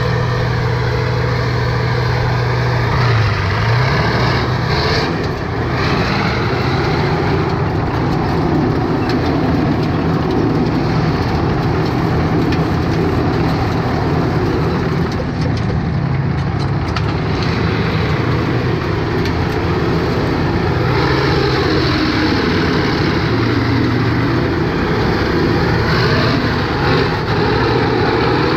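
M-84 main battle tank's V12 diesel engine running under load as the tank drives over gravel, with its tracks crunching across the stones. The engine pitch dips briefly about three seconds in and shifts again as the tank manoeuvres.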